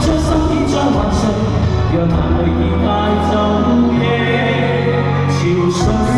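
Cantopop band music playing, with a sustained bass line changing notes every second or two, a melody over it and cymbal hits.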